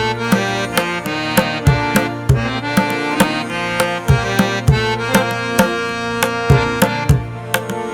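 Instrumental music: sustained melodic tones over a steady rhythm of drum strokes.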